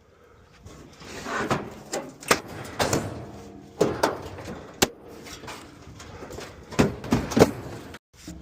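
Scrap metal being handled and pulled about: a run of clanks, knocks and scrapes, a dozen or so sharp hits, one with a brief metallic ring.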